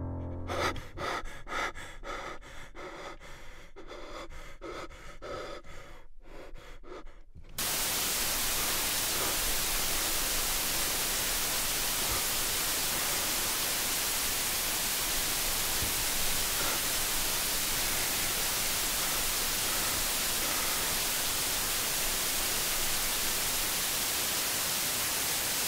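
Steady television static hiss, like a detuned TV's white noise, that cuts in abruptly about seven and a half seconds in and holds level. Before it comes a quieter stretch of faint, regular pulsing.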